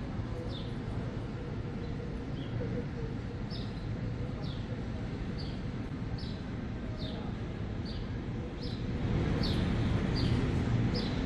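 A small bird calling over and over, a short high chirp that drops in pitch, about once a second, over a steady low rumble of city and harbour background that grows louder near the end.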